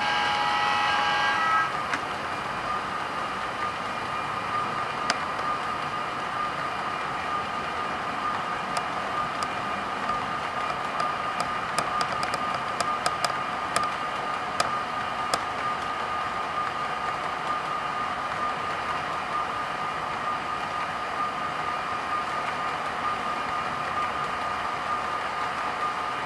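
HO scale model coal train's hopper cars rolling along the track with a steady electric hum, and a quick run of light clicks from the wheels over rail joints in the middle. A brief, louder horn-like tone sounds in the first second and a half.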